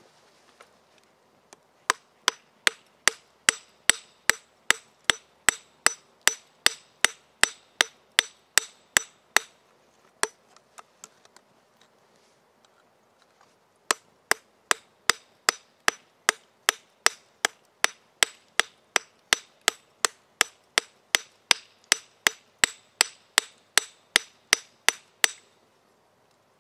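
Hammer striking steel in two long runs of steady blows, about three a second, each blow with a short metallic ring. The runs are separated by a pause of about four seconds with a few faint knocks.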